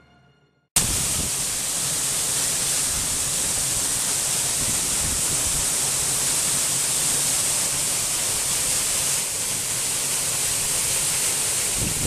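Steady rush of a waterfall pouring into a rock pool, cutting in suddenly about a second in.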